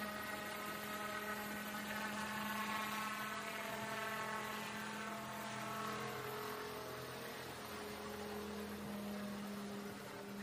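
Helicopter flying overhead: a steady engine hum with high whining tones that slide down in pitch as it passes.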